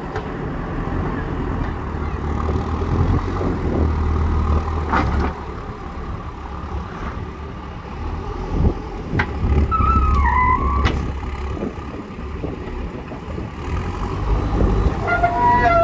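JCB 3DX Super backhoe loader's diesel engine running and revving up under load as the front loader lifts and tips a bucket of sand into a dump truck, swelling in several surges, with a few sharp metal knocks.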